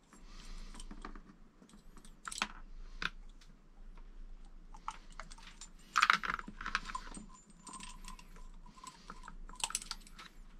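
Scattered light clicks and taps of small plastic and metal parts of an RC car chassis being handled and set down on a workbench, loudest in a cluster about six seconds in.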